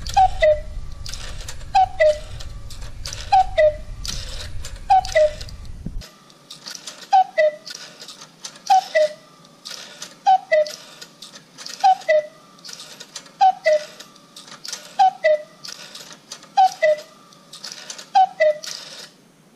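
Electromechanical cuckoo clock striking the hour: its two small wooden bellows-blown pipes sound a high then low 'cu-ckoo' about every second and a half, a dozen times over, each call with a clatter of the Meccano striking mechanism. A low hum under the first six seconds stops abruptly.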